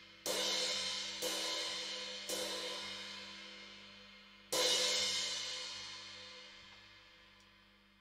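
Meinl Classics Custom Dark crash cymbal struck four times with a stick: three crashes about a second apart, then a fourth about two seconds later. Each crash is left to ring, and the last dies away slowly.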